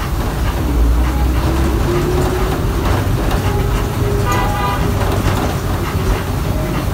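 City bus engine running, heard from inside the passenger cabin: a steady low rumble with a whine that rises in pitch over the first two seconds or so. A short horn toot about four seconds in.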